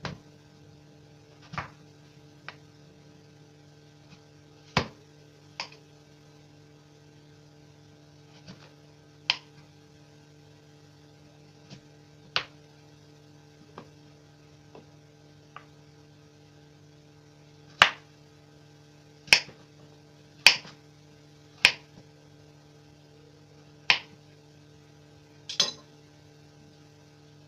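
Kitchen knife cutting through raw peeled taro and striking a wooden cutting board: scattered sharp knocks, coming closer together and louder in the second half. A steady low hum runs underneath.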